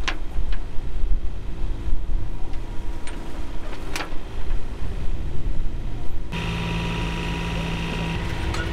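A yacht's engine running steadily under uneven rushing noise, with a few sharp knocks; the sound changes abruptly about six seconds in.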